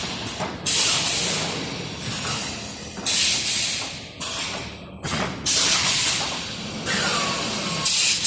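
Baling machine running on test: four loud hissing surges that each start suddenly and fade over a second or two, with a brief sliding squeal near the end.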